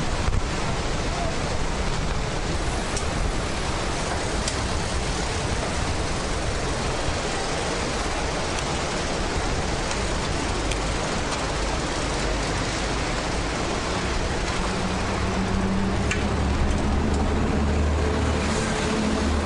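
Steady rushing road and wind noise from passing traffic. About fifteen seconds in, a motor vehicle's low engine hum rises and holds near the end.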